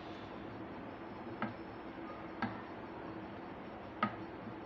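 Silicone spatula stirring caramelized sugar in a granite-coated pan, with three light knocks of the spatula against the pan about a second apart, over a faint steady hum.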